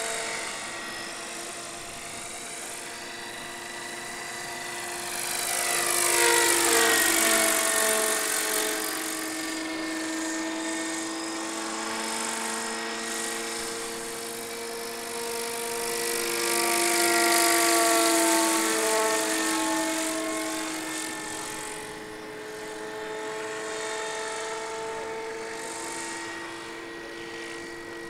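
Giant-scale Airwolf model RC helicopter flying past with a steady whine from its rotor and drive. It grows louder twice, the pitch dropping each time as it passes close.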